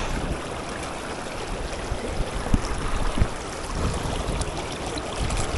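Creek running high and fast after heavy rain, its water rushing steadily, with a few brief low thumps about two and a half and three seconds in.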